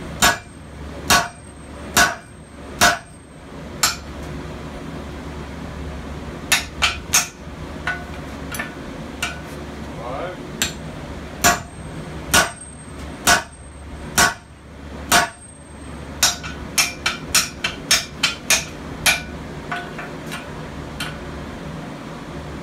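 Sledgehammer and hand hammer blows on red-hot steel on an anvil: a striker and a smith forging a hammer head, driving a drift through its eye. The heavy blows land just under a second apart, pause for a couple of seconds early on, then come as a quicker run of lighter blows about two-thirds through before tailing off near the end.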